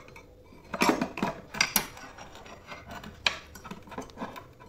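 Hand-held stainless steel lemon squeezer being opened and handled, its hinged metal arms giving a few sharp clicks and clinks.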